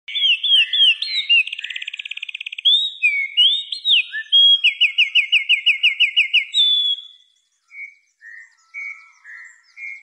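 Wren singing a long, loud, rapid song of sweet notes and fast trills for about seven seconds, followed by a few softer, separate notes near the end.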